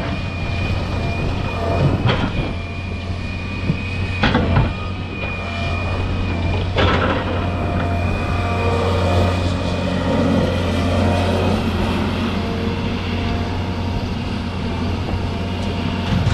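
An excavator's engine runs steadily under load with a high steady whine, and a few sharp knocks come in the first half as it works.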